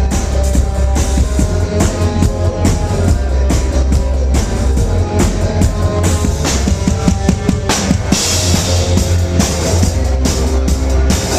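A rock band playing loudly at a sound check, the drum kit to the fore with kick and snare strikes over a heavy bass. A wash of cymbals comes in about eight seconds in.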